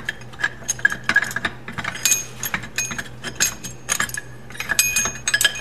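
1973 Honda CB750 camshaft being wiggled into the cylinder head, its steel lobes clinking and knocking against the cam journals: a run of irregular metallic clicks, some ringing briefly.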